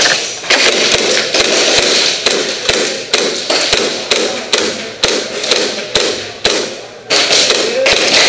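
Airsoft gunfire in close quarters: a steady run of sharp cracks and knocks, about two a second, each with a short echoing tail.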